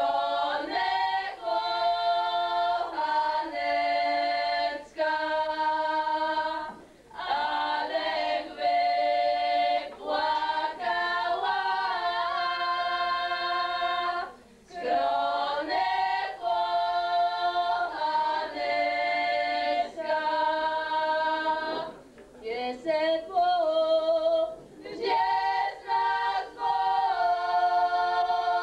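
A group of girls singing unaccompanied, a cappella, in long held phrases with short breaks between them about every seven seconds.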